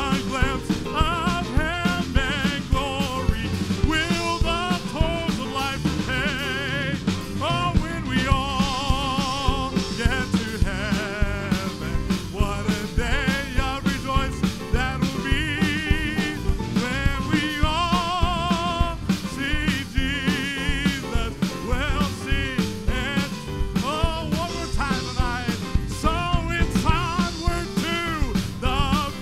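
Gospel song played by a band with a steady drum beat, with singing voices holding notes with vibrato over it.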